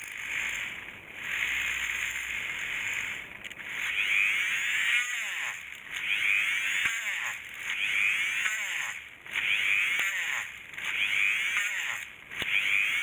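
A hissing, scraping noise that swells and fades in even strokes, about one every second and a half.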